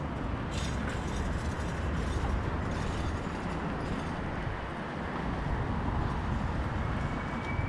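Wind buffeting an action camera's microphone while riding a bike through city traffic, a continuous low rumble with road and traffic noise under it. A thin, steady high whine comes in near the end.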